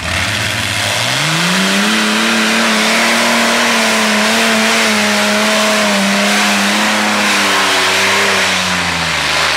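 Twin Allison V-1710 V12 aircraft engines of a methanol-fuelled modified pulling tractor, revving up hard about a second in and held at full power under the load of the pulling sled. The engine note drops near the end.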